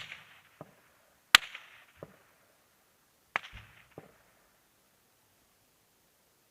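Three sharp gunshot cracks, spaced about one and a half to two seconds apart, each followed about half a second later by a fainter, duller report.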